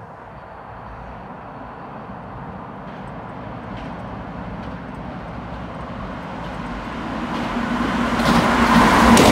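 Keisei Line electric train approaching at speed to pass through the station without stopping: its wheels on the rails rumble louder and louder throughout, and rail clacks and a steady hum come in over the last second or so as it nears the platform.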